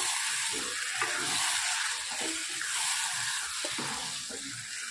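Undhiyu (Gujarati mixed-vegetable stew) sizzling and bubbling in oil in a pan while a spoon stirs it, scraping and knocking irregularly against the pan.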